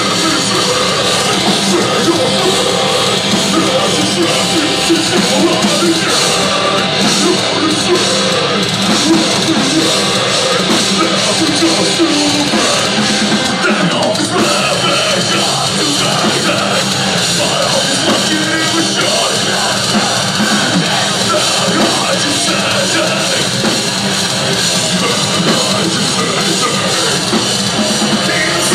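Live heavy rock band playing loud and without a break: electric guitars, a pounding drum kit and shouted vocals.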